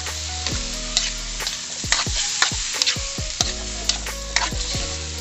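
Coconut heart and sardines sizzling in a frying pan while a metal spoon stirs them, clicking and scraping against the pan several times.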